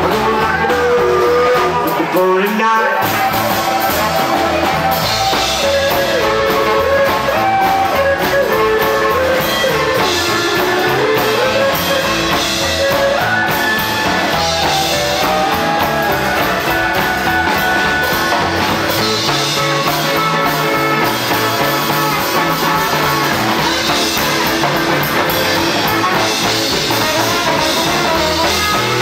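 Live rockabilly band playing an instrumental stretch: electric guitars, upright double bass and drum kit.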